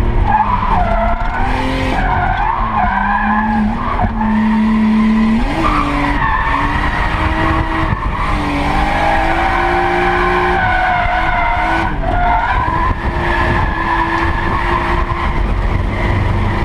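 Nissan Skyline R32 GTS-4's engine revving hard through a drift, its pitch rising and falling repeatedly, with tyres skidding. Heard from inside the cabin.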